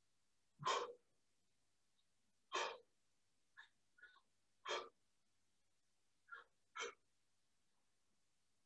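A man's hard breathing out during overhead presses: short puffs about every two seconds, with a few fainter breaths between.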